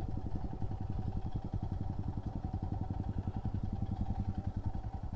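Royal Enfield Himalayan's single-cylinder engine running at low revs with a steady, even beat of firing pulses as the bike creeps along a dirt track.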